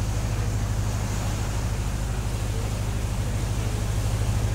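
Cacilheiro ferry's engine running with a steady low drone, under the rush of water along the hull and wind.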